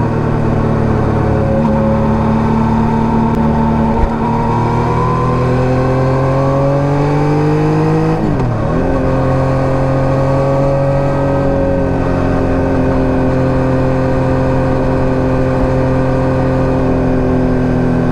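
Yamaha MT-09 gen 3's 890 cc inline-three through an SC-Project STR-1 exhaust, riding in gear with the revs climbing slowly. About eight seconds in it shifts up: the pitch drops and picks up lower, then holds at steady cruising revs. There is a sharp click about four seconds in.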